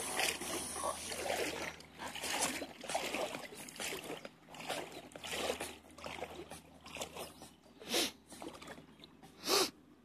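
Shallow water splashing and lapping in an irregular, uneven way, with two louder splashes near the end.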